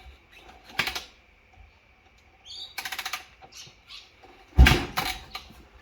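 Yamaha WR250 dirt bike being kick-started: three short bursts of the kickstarter swinging the engine over without it catching, the loudest about three-quarters of the way through. The engine will not start even with its carburettor freshly cleaned.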